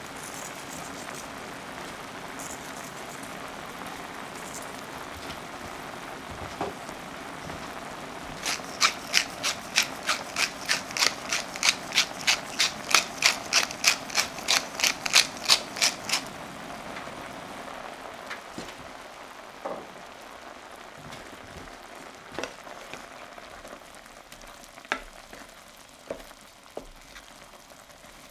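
Creamy sauce simmering and bubbling in a stainless steel sauté pan. For several seconds in the middle a pepper mill grinds over it in a run of even, sharp clicks, about three a second.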